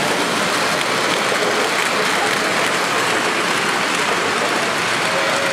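Model freight train running on the layout track: a steady, even rushing noise of wheels rolling on rails.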